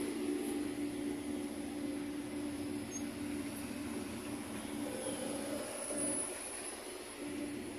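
Battery-electric city buses moving off slowly in convoy, one passing close: the electric drive's steady hum, which fades about halfway through and comes back near the end.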